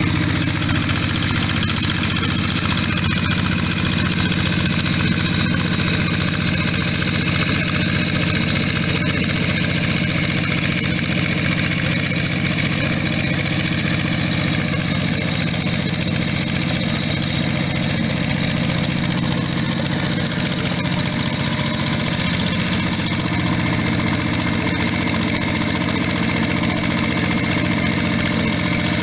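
Yanmar hand tractor's single-cylinder diesel engine running steadily under load, pulling a plow through paddy mud.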